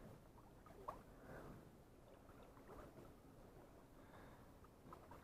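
Near silence: faint background noise with a couple of small ticks.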